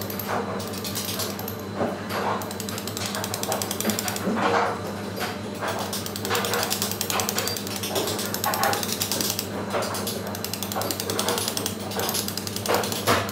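A steady run of quick, light taps: a short round-headed carver's dummy striking the end of a small chisel as it cuts into the stone, with a harder blow every second or so.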